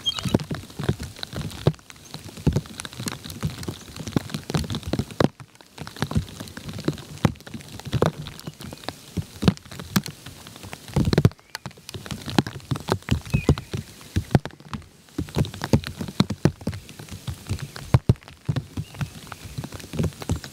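Dense irregular pattering of quick taps and a few louder knocks, with a louder run of taps about eleven seconds in.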